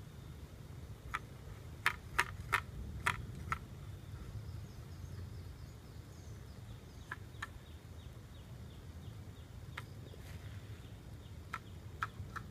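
Outdoor riverbank ambience: a steady low rumble, a quick run of sharp clicks in the first few seconds and a few more scattered later, with faint high bird chirping.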